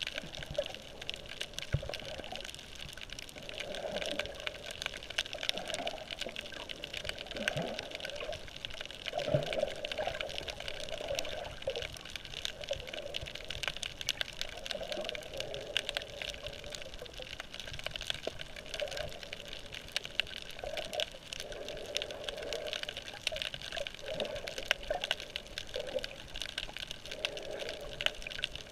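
Water heard underwater through a GoPro: muffled sloshing and swells of water movement, with a constant fine crackle of clicks.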